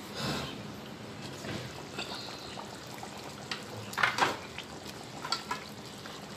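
Curry simmering in an open pan: a steady low hiss with scattered soft bubbling pops, the loudest a little after four seconds in.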